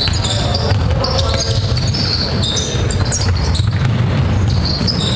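Basketball game on a hardwood court: the ball bouncing and sneakers squeaking in short high chirps as players cut and stop, over a steady low hall rumble.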